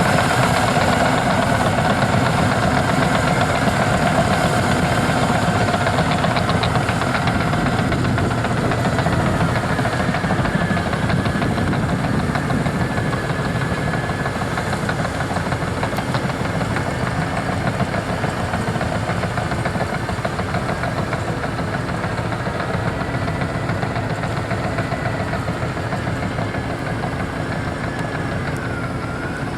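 Caterpillar D6N LGP bulldozer's diesel engine running steadily as it pushes peat, with a thin high whine over the engine; the sound slowly grows fainter.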